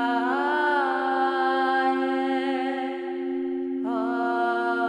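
A voice toning long, held vowel notes in Light Language over a steady drone. The voice slides up into its first note and moves to a new held note near the end.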